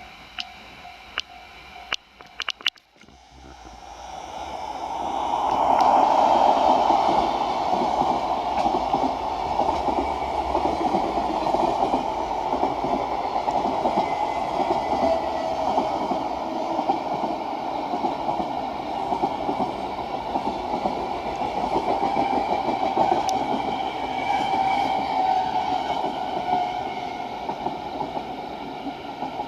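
Freight train hauled by an EF65 electric locomotive passing close by: the rumble and wheel clatter build from about three seconds in, are loudest around six seconds, then run on steadily as the wagons roll past, easing near the end. A few sharp clicks sound in the first three seconds.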